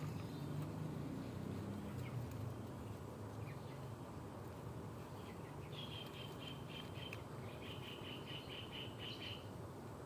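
A bird giving two quick runs of repeated high chirps in the second half, over a faint steady low rumble.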